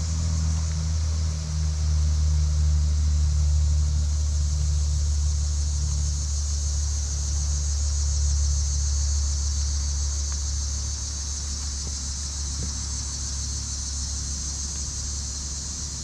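An engine, such as a motor vehicle's, running with a steady low hum that is loudest a few seconds in and slowly fades, over a steady high hiss.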